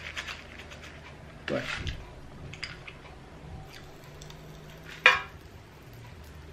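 Candy packet rustling briefly about a second and a half in, then faint scattered crackles of popping candy fizzing on the tongue, with one sharp click about five seconds in.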